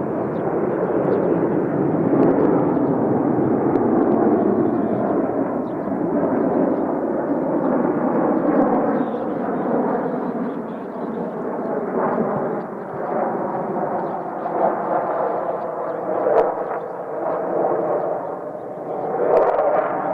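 Jet engines of a formation of twin-engine fighter jets flying over: a steady, rumbling roar with some crackle. The roar swells several times in the second half, with tones slowly falling in pitch.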